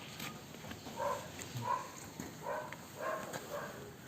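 A dog barking repeatedly in the background, short barks about two a second.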